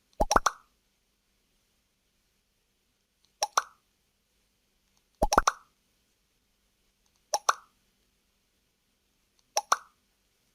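Facebook 'like' sound effect: a short popping blip made of two or three very quick pops, played five times with two to three seconds of silence between.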